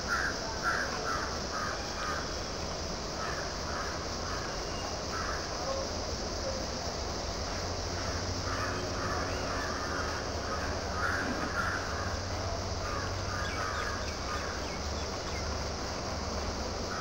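Crows cawing in runs of short repeated calls, over a steady high-pitched insect drone.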